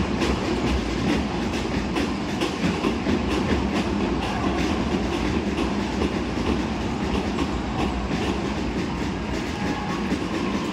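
Basketball arena ambience heard from the stands during live play: a steady crowd and hall din with frequent sharp knocks and clacks, several a second.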